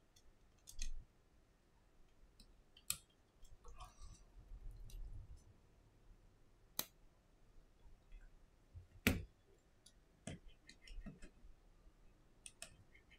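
Small clicks and taps of fingers and a small screwdriver working on an iPhone 6s display assembly, parts and tool touching the screen's metal frame. A few sharper taps stand out, the loudest about nine seconds in.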